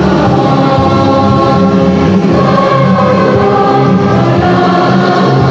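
School choir singing a march in many voices, loud and steady, holding long sustained chords that move from one to the next.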